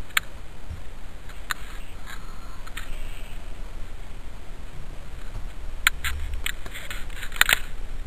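Scattered sharp clicks, a few spread out and then a quicker cluster near the end, over a low steady rumble.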